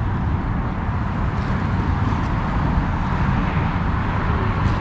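Steady outdoor background noise with a heavy low rumble and an even hiss, with no distinct events.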